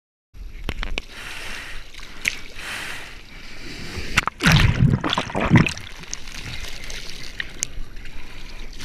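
Seawater splashing and sloshing right at a mouth-mounted GoPro in the surf, with a loud rush of water from a breaking wave about four and a half seconds in, lasting a little over a second.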